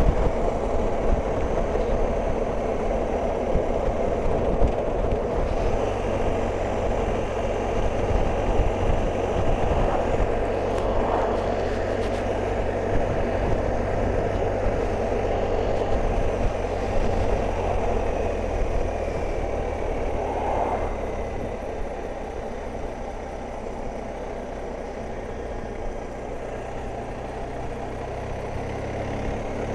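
On-board riding noise from a BMW R 1250 GS Adventure: its boxer-twin engine mixed with wind rush, steady at around 35 mph. It grows quieter from about two-thirds of the way in as the bike slows and changes down.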